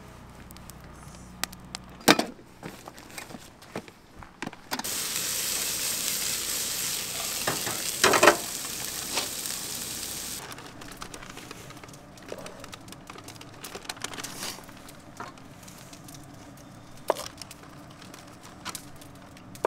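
Food sizzling in a hot pan on a camp stove, starting suddenly about five seconds in and lasting about six seconds, among scattered knocks and clicks of cooking utensils; a sharp knock near the middle of the sizzle is the loudest sound.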